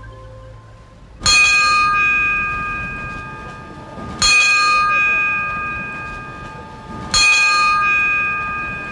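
A bell struck three times, about three seconds apart, each stroke ringing on with several clear tones and slowly fading.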